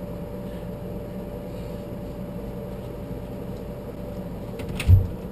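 Steady low machine hum with a faint steady tone over it, then a few clicks and a dull, low thump near the end.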